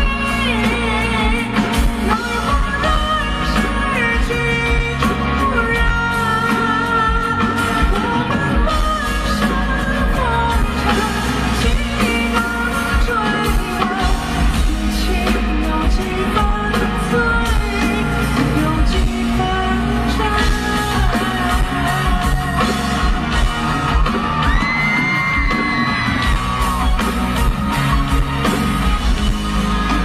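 Live pop-rock band with a male lead vocalist singing through the concert PA, including a long held high note about two-thirds of the way through.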